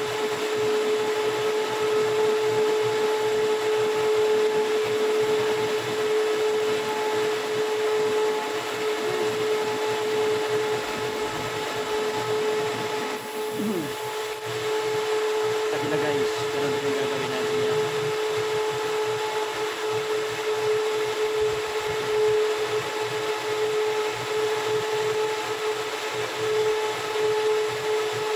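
A machine motor running steadily, a constant mid-pitched hum over a rushing noise, dipping briefly about halfway through.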